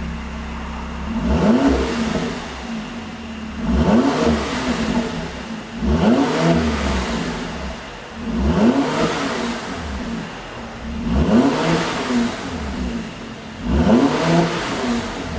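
Mercedes-AMG C43 engine revved in six short blips, about every two and a half seconds, each rising and falling in pitch. Each blip is followed by pops and crackles from the exhaust, the sound of a pop-and-crackle engine tune.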